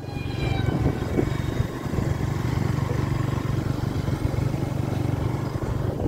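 Motorcycle engine running at a steady speed while riding, a constant low hum under road noise.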